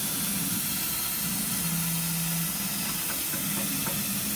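2200 W fiber laser cutting machine cutting steel plate: a steady hiss of gas jetting from the cutting nozzle, over a low hum that keeps switching between two pitches as the cutting head moves. A few faint ticks about three seconds in.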